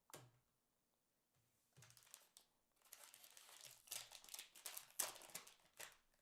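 Plastic packaging crinkling and rustling in irregular bursts while trading cards are handled, with a single light click at the start and the loudest crinkles about four to five seconds in.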